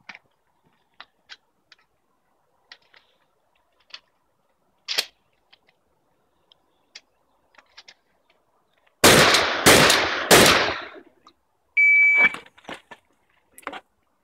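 Three loud shotgun shots about two-thirds of a second apart, followed about a second later by the short, steady electronic beep of a shot timer. Faint scattered clicks and pops come before and after.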